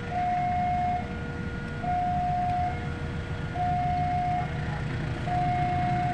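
Electronic two-tone railway level-crossing warning alarm: a higher and a lower steady tone take turns, each held just under a second, over a steady low rumble.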